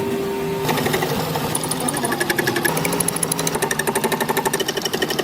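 Fast, even mechanical hammering on metal, about ten blows a second with a ringing edge, over a steady machine hum. It starts just under a second in.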